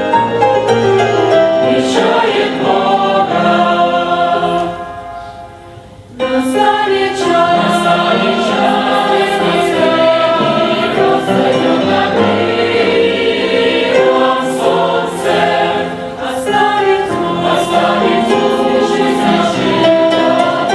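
A choir singing a Christian song, with a short lull about five seconds in before the next phrase comes in.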